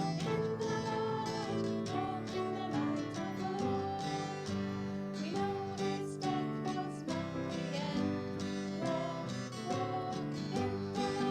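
A hymn with strummed acoustic guitar accompanying a singing voice.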